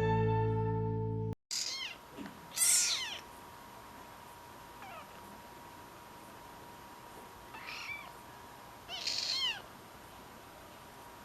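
A tabby kitten meowing about five times with short, high-pitched calls that bend up and down in pitch. The second call is the loudest. Background music ends on a held chord just before the first meow.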